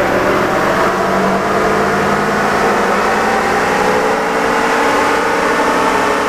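2018 GMC L5P Duramax 6.6-litre turbodiesel V8 pulling hard through a power run on a chassis dynamometer, its pitch rising steadily as the engine climbs from about 1,800 to 2,800 rpm under load.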